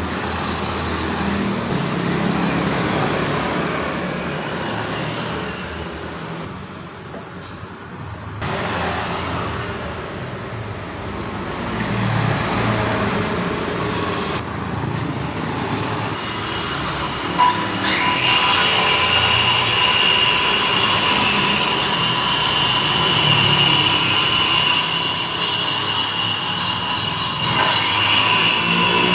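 Electric circular saw motor spinning up to a steady high whine a little past halfway, stopping briefly near the end and spinning up again. Before that, uneven workshop noise.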